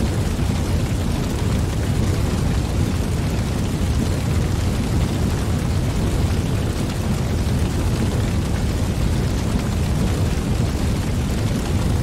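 Wood fire burning in a perforated metal fire pit: a steady, low-pitched rush of flames.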